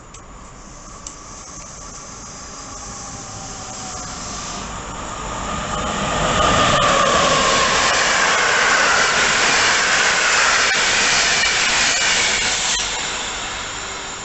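A train approaching and passing close by on the rails, growing steadily louder to a peak about six seconds in, holding for several seconds, then starting to fade near the end. A whine that bends in pitch runs through the loudest part, with a few sharp clicks from the wheels.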